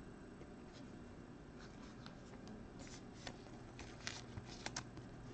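A trading card being slid into a thin plastic penny sleeve: faint crinkling rustles and small clicks of the plastic, starting about a second and a half in and growing more frequent toward the end.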